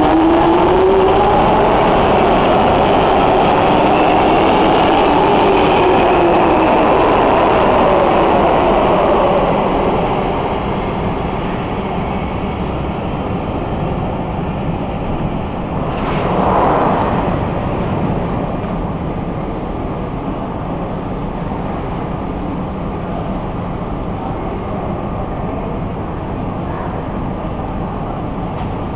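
Alstom 1996 Stock Jubilee Line tube train slowing to a stop at the platform, its motor whine falling in pitch over the first nine seconds or so. It then stands with a steady hum, broken by a short rush of noise about sixteen seconds in.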